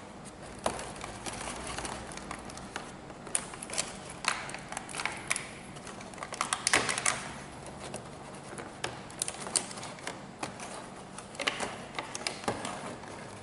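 Hands handling a plastic toy quadcopter drone in its white plastic packaging tray: irregular clicks, taps and rustling as the drone is worked loose, the busiest stretch about halfway through.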